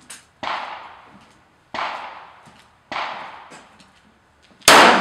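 Kimber 1911 .45 ACP pistol fired in slow, aimed single shots, four in all about one and a half seconds apart, each ringing out under the range roof. The last shot, near the end, is much louder than the others.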